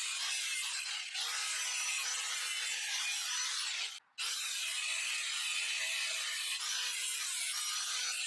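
A tool cutting the sharp corners off a kayak carrier rack, giving a steady rasping hiss. It is broken by a brief, total cut-out of sound about four seconds in.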